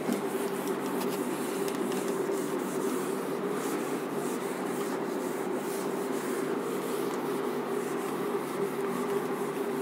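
A duster being rubbed over a whiteboard, wiping off marker writing with continuous scrubbing strokes.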